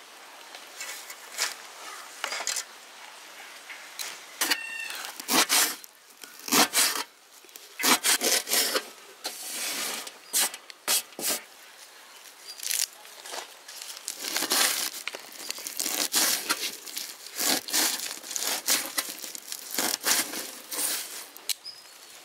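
Irregular scraping and rubbing strokes, some single and some in quick runs of several, with a short high chirp about four and a half seconds in.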